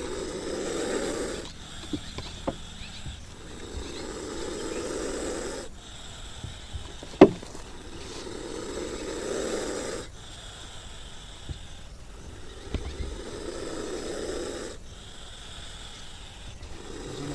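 An animal snoring: slow, rhythmic, rough breaths, about one every four seconds, each lasting roughly two seconds. A single sharp click with a quick falling pitch comes about seven seconds in.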